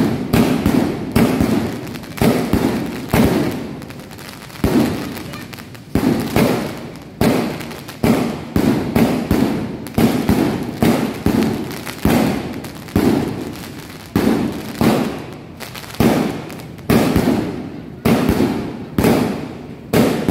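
A 49-shot, 1.9-inch "Iron Man" firework cake firing shell after shell, about one a second. Each shot is a sharp bang that trails off before the next.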